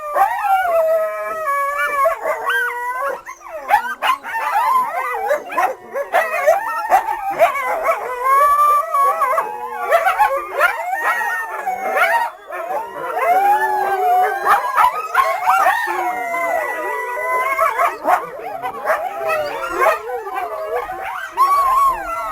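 A coyote chorus: several coyotes howling and yipping at once, their wavering pitched calls overlapping and gliding up and down throughout, put together as the voice of a prehistoric dog.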